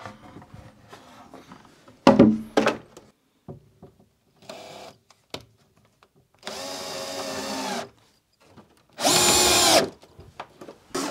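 Cordless drill-driver running in two short bursts on screws, the second louder; a few sharp wooden knocks from board handling come before them.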